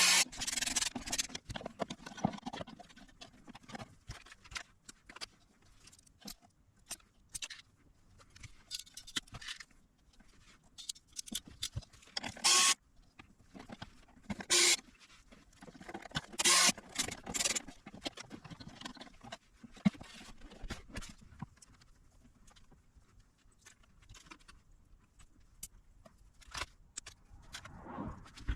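Hands working on a small electronic unit on the bench: irregular clicks, taps and scrapes of tools and parts being handled, with a few louder rustling bursts in the middle.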